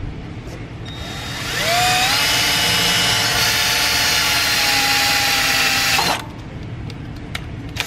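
Cordless drill spinning up with a rising whine about a second and a half in, then running steadily as it bores a hole through a thin metal bracket strip, and stopping abruptly about six seconds in.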